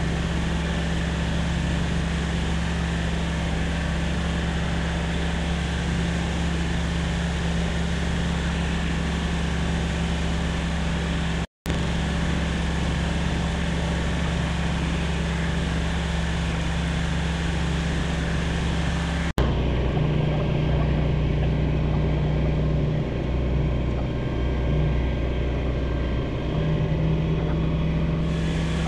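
Light aircraft's piston engine and propeller droning steadily in cruise, with a constant low hum under a broad hiss. The sound drops out for a split second about a third of the way through, and changes abruptly about two-thirds through, turning duller.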